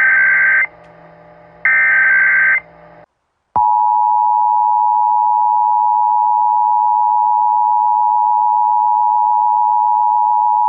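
Emergency Alert System SAME header: two short bursts of digital data squawk, encoding a Required Monthly Test. About half a second of silence follows, then the EAS attention signal starts at about three and a half seconds in: a steady two-tone sound of 853 and 960 Hz.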